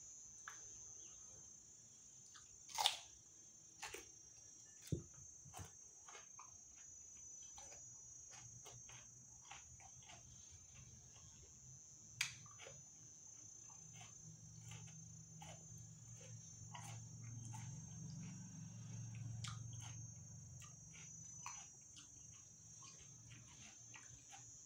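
Quiet eating: biting into fresh cucumber and chewing, with scattered sharp clicks and a few louder crunches, the loudest about three seconds in. A steady high trill of crickets runs behind.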